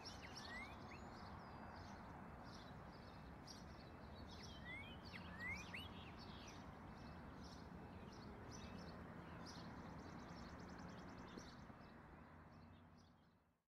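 Faint countryside ambience with small birds chirping: short rising whistles and scattered high chirps over a soft steady hiss, fading out near the end.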